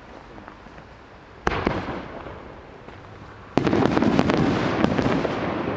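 Fireworks: a sudden bang about a second and a half in, then a louder burst about two seconds later followed by dense crackling that slowly fades.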